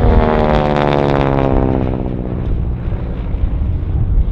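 North American Harvard's Pratt & Whitney R-1340 radial engine and propeller passing overhead, its pitch falling as it goes by and the sound fading over the last couple of seconds.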